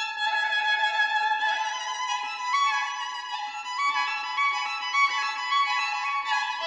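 Background music: a violin melody of held notes stepping up and down.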